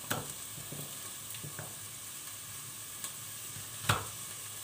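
A kitchen knife cutting carrots on a plastic cutting board: three sharp knocks of the blade on the board, the loudest near the end, over a steady background hiss.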